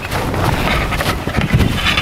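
Snow shovel being handled close by: irregular scraping, knocking and low thumps, with clothing and tent fabric rustling.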